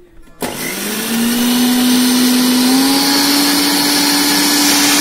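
Indian electric mixer grinder (mixie) switched on about half a second in, grinding a mint, coriander and tamarind mix with water into a thin liquid. Its motor whine rises as it gets up to speed, then holds steady.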